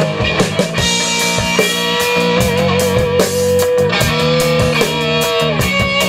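Live rock band playing an instrumental passage: electric guitar holding long notes with a slight vibrato over bass guitar and a steady drum kit beat.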